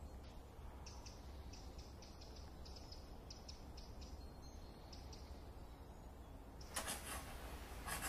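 Faint forest ambience with small birds chirping in short repeated notes, then a brief rushing noise near the end.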